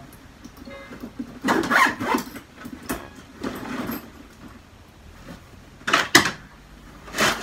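A fabric laptop bag and clothes being handled on a bed: bursts of rustling and shuffling, then two sharp clicks about six seconds in and another rustle near the end.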